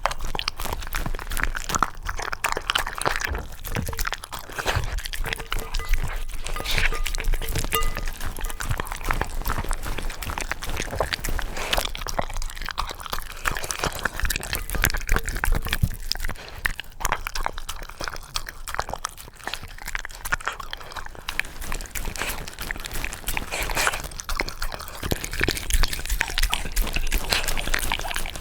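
Shiba Inu eating yogurt with toppings: a steady, irregular run of crunching and chewing.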